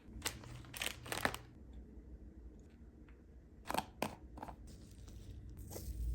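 Slime being handled and pressed, giving sharp clicks and pops: a quick cluster in the first second and a half, a few more around the middle and one near the end.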